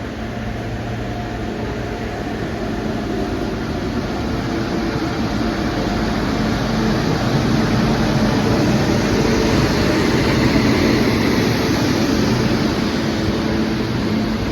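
Indian Railways train running through a station without stopping: a steady rumble and rattle of wheels on track that grows louder as it approaches, loudest about ten seconds in.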